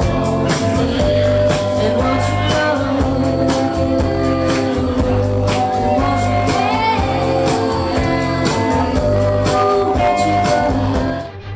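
Music: a singing voice over a steady beat and bass, breaking off shortly before the end.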